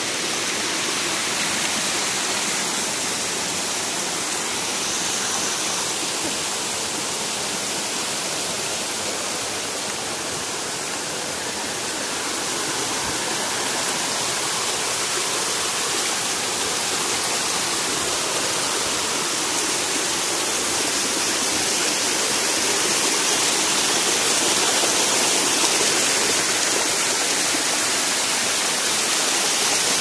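Small waterfall cascading over rocks: a steady rushing of water that grows a little louder over the last several seconds.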